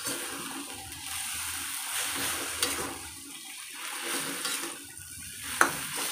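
Mushrooms sizzling in a hot wok just after sweet soy sauce goes in, stirred with a metal spatula that scrapes the pan, with one sharp knock of the spatula on the wok near the end.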